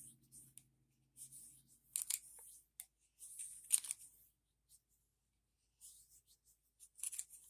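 Cloth rag rubbing and scrubbing on a 1911 pistol barrel. The rustling comes in short strokes, some bunched close together and some with gaps of a second or more, as the barrel is wiped of carbon.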